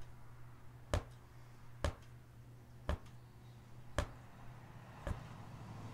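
Ultra Punch Needle with a medium tip, set at height 12 for long loops, punching through tightly stretched weaver's cloth: a sharp tap about once a second, six in all, over a low steady hum.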